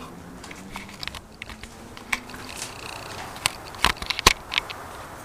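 Sharp clicks and knocks of a cheap camcorder's buttons and body being handled, picked up by its own built-in microphone, most of them bunched in the second half. The zoom control is not responding to the presses. A faint low hum runs under the first couple of seconds.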